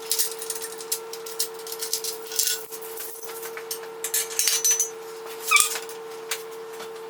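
Scattered clicks and clinks of hand tools and bolts on metal during work on a car engine, over a steady hum. One short high squeak comes about five and a half seconds in.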